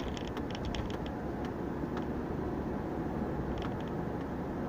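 Steady in-cabin road and engine noise from a car driving along. A cluster of light clicks comes in the first second and a few more about three and a half seconds in, like interior rattles.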